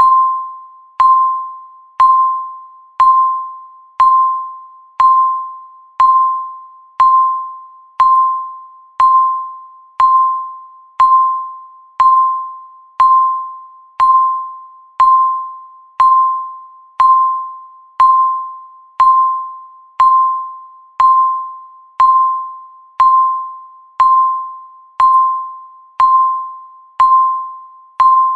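Countdown timer's tick sound: one short, bright pitched ping struck exactly once a second, each starting with a sharp click and fading quickly before the next.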